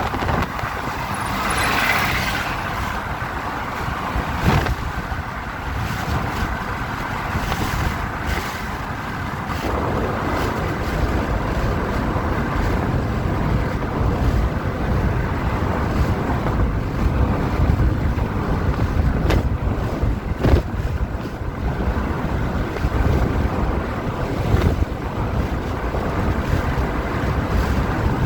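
Steady rumble of a moving vehicle with wind buffeting the microphone, and a few short knocks.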